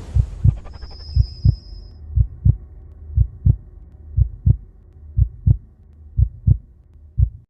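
Suspense sound effect of a slow heartbeat: eight low double thumps, about one a second, over a steady low hum, cutting off after the last beat.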